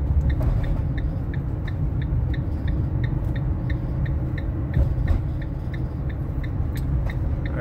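Car driving along a city street, heard from inside the cabin: a steady low road and engine rumble, with a light regular ticking about three times a second.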